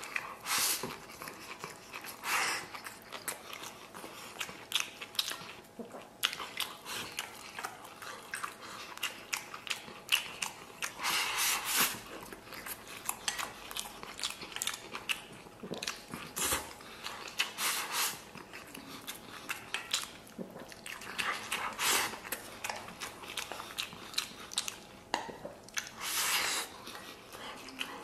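Close-up eating sounds: a man chewing and biting mouthfuls of rice and braised beef, with dense small wet clicks throughout. Every few seconds there is a louder burst, about a second long, as he shovels food from a stainless steel bowl into his mouth with chopsticks.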